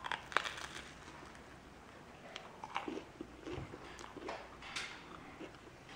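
A person biting into a grilled panini sandwich, with a sharp crunch near the start, then chewing it with scattered small crunches.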